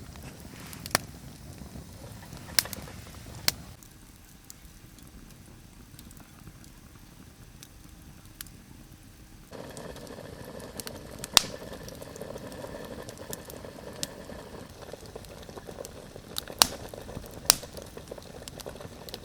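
Wood campfire crackling with scattered sharp pops over a steady hiss, with a pot simmering on it.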